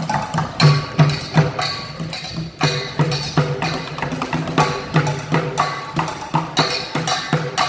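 Street bucket drumming: drumsticks beating a fast, steady rhythm on an upturned plastic bucket and metal pans, low bucket thuds under sharp clacks with a light metallic ring.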